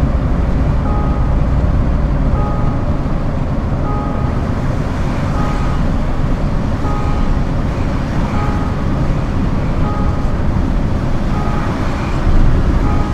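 Scania R410 concrete truck's diesel engine running with a steady low rumble. A short two-note beep repeats about every second and a half over it.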